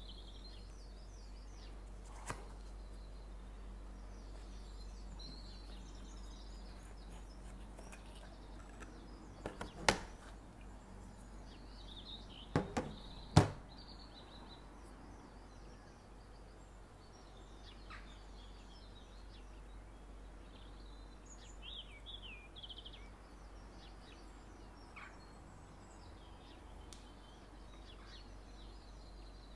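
Birds chirping in the background throughout, with a few sharp knocks and taps as a cardboard perfume box and its glass bottle are handled. The loudest knocks come about ten and thirteen seconds in.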